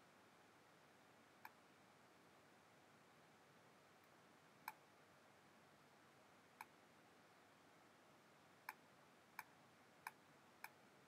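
Near silence broken by seven short, sharp clicks of a computer mouse button as strokes are drawn on screen. The clicks are a few seconds apart at first and come faster, about every two-thirds of a second, near the end.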